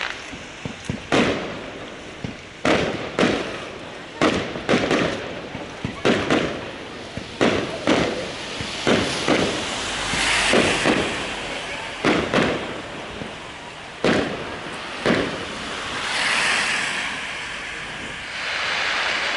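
Aerial fireworks bursting overhead: a long run of sharp bangs at irregular intervals, with stretches of crackling in the middle and near the end.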